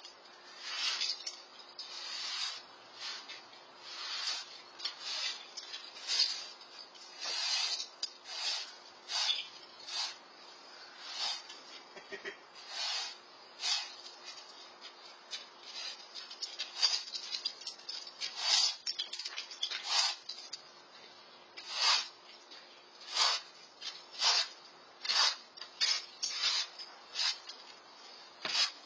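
Broom bristles sweeping a concrete patio in short, irregular strokes, about one swish a second.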